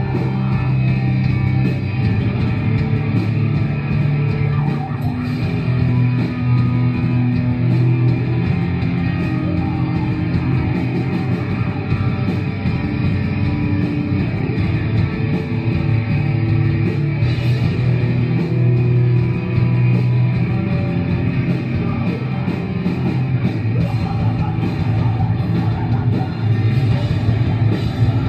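Live deathcore band playing: electric guitars, bass and drums, loud and dense, with long, low, held guitar notes.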